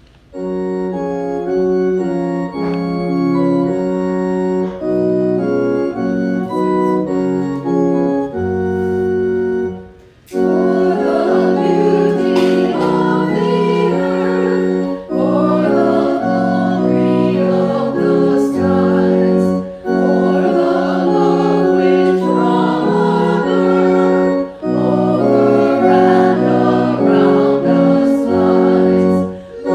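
A church organ plays held hymn chords alone for about ten seconds. After a short break, a small group of women sing the hymn with the organ accompanying them, pausing briefly between phrases.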